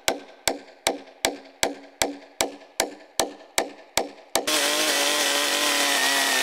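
Rapid, evenly paced hatchet strikes on a spruce log, about two and a half a second. About four and a half seconds in they give way abruptly to a chainsaw running steadily.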